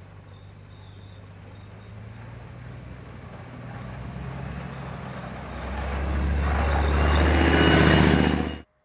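Gepard tracked anti-aircraft gun's diesel engine running as the vehicle drives closer, growing steadily louder and loudest near the end, then cutting off suddenly.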